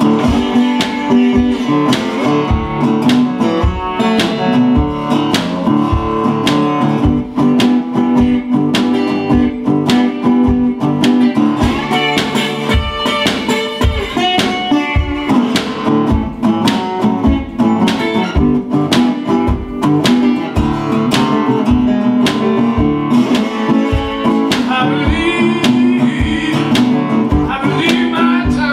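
Resonator guitar played solo in acoustic Delta blues style: a steady bass note about twice a second under picked treble notes.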